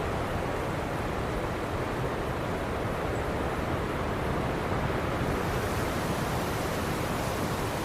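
Ocean surf washing onto a beach: a steady rush of breaking waves that turns brighter and hissier about five seconds in.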